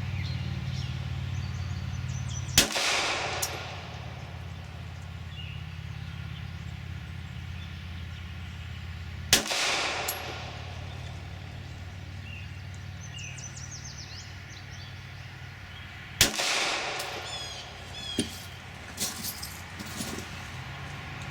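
Three single shots from a Glock 26 subcompact 9mm pistol, about seven seconds apart, each followed by a short echo: slow, controlled fire.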